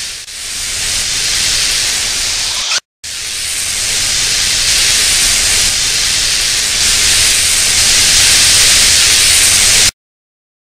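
Force lightning sound effect: a loud, steady electric hiss. It stops dead for a moment about three seconds in, resumes a little louder, then cuts off abruptly near the end.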